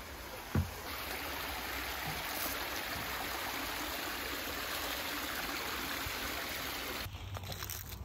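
Small stream trickling over rocks, a steady rush of water that cuts off abruptly near the end. One footstep thud on a wooden footbridge about half a second in.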